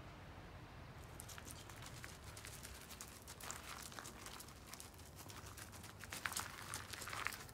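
Footsteps crunching on loose pebble gravel: irregular clicks and scrunches of shifting stones. They start about a second in and grow louder near the end.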